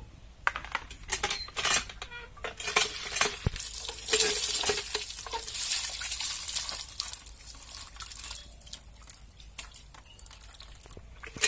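Water from an iron hand pump gushing and splashing onto fish pieces in a steel plate, loudest from about four seconds in and easing off after about seven, with clinks and knocks of the metal plate and the pump handle.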